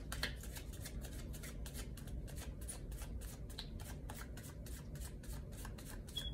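A deck of tarot cards being shuffled by hand, overhand style, with the cards passed from one hand to the other in a steady run of soft, quick card flicks, about four to five a second.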